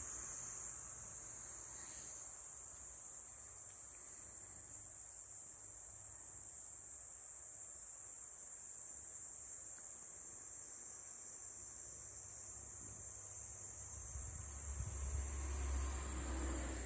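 Steady, high-pitched chorus of insects, an unbroken drone without pauses.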